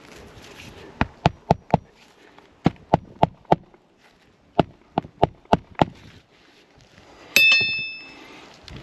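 Hand hammer driving roofing nails to fasten a lifted asphalt shingle back down, in three quick runs of four or five blows each. Near the end comes one louder metallic strike that rings briefly.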